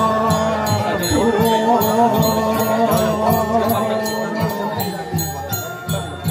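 Balinese ceremonial music: metallic bell-like ringing struck in a steady rhythm, under chanting voices.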